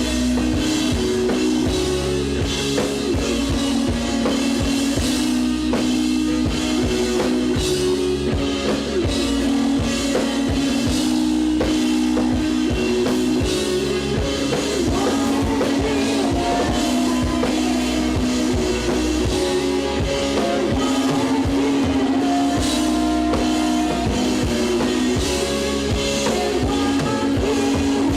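Rock band playing live: guitar chords over a drum kit keeping a steady beat.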